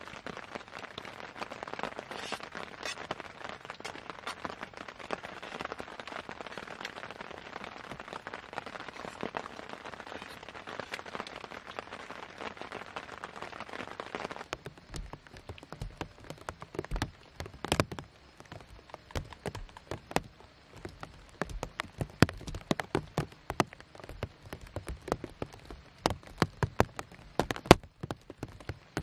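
Rain falling steadily. About halfway through, the dense patter gives way to scattered, separate heavy drops landing irregularly.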